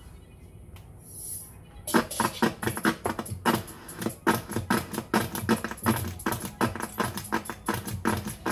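Rapid, irregular clicking and crackling from the opened Sharp GF-777 boombox under repair. It starts about two seconds in and runs on at several clicks a second.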